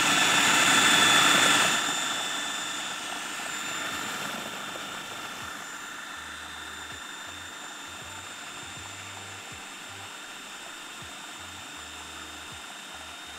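Electric food processor running continuously, blending soft white cheese with oil and whey: a steady motor whine, loudest for the first two seconds, then settling a little quieter.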